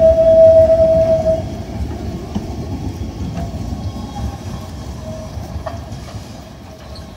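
Articulated low-floor tram rolling through a tight curve, its wheels squealing on the rails with one loud steady tone that stops about a second and a half in. The low rumble of the tram rolling on the track carries on, fading.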